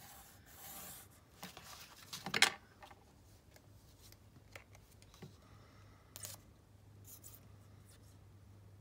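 Craft materials being handled on a cutting mat: a pencil scratching a short mark, then book boards and papers sliding and being set down, with one sharp scrape about two and a half seconds in and a few light clicks later.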